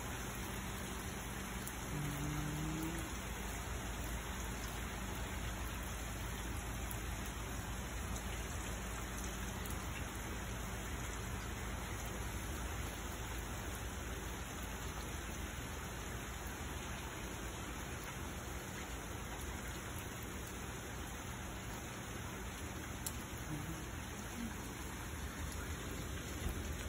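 Thunderstorm rain falling steadily on a wet concrete driveway and street: an even, unbroken hiss of drops.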